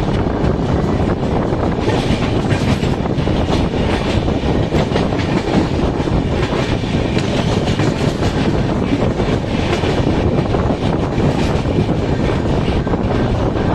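Express train's coach running along the track, heard from on board: a steady rumble with the wheels clicking over the rails again and again.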